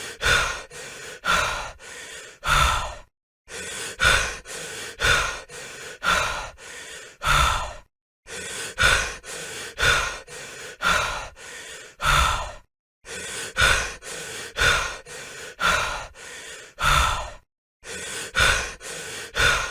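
A person breathing heavily: quick, panting breaths in and out, about two a second, in runs broken by brief pauses about every four and a half seconds.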